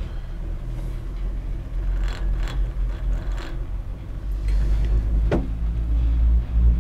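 Steady low rumble of a gondola cabin riding up the cable, growing somewhat louder after about four seconds, with a few faint knocks and one sharp click about five seconds in.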